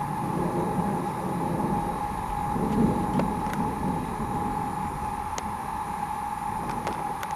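A low rumble that swells to its loudest about three seconds in and then dies away, over a steady high-pitched drone, with a few faint clicks.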